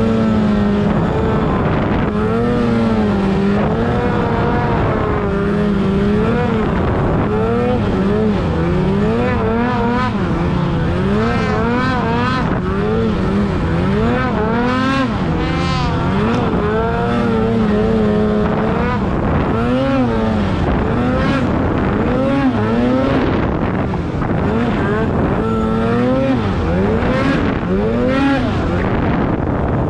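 2018 Polaris Pro RMK 800's two-stroke twin engine breathing through a GGB mountain can exhaust, revving up and down over and over as the sled carves through deep powder.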